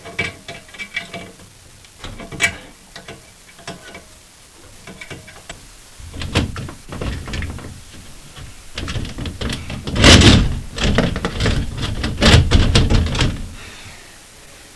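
Knocks, clicks and clattering from hands and a tool working the fittings of a toilet cistern while the water supply hose is unscrewed. The handling is sparse at first and grows busier and louder from about six seconds in, with the loudest clatter around ten seconds and again near the end.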